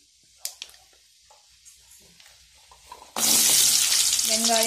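Chopped shallots tipped into hot oil in a kadai, setting off a sudden loud sizzle of frying about three seconds in that then holds steady. Before it, only a few faint clicks.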